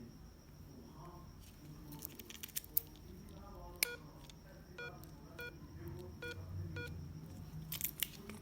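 Smartphone key tones: five short electronic beeps, like dial-pad tones, starting about four seconds in, mixed with scattered clicks from tapping. A faint, steady, high whine runs underneath.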